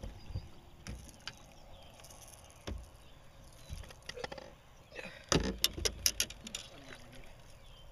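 Splashing and knocks at a boat's side as a bass is landed by hand, with scattered clicks and a quick run of loud sharp clicks and knocks about five to six seconds in.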